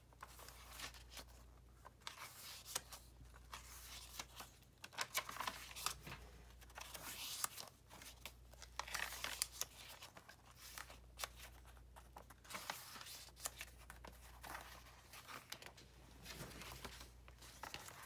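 Paper pages of a handmade journal being turned and smoothed by hand, giving a string of short rustles and soft flaps.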